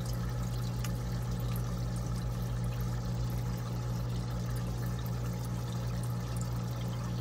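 Aquarium air pump humming steadily while an air stone bubbles in the water of a small tub.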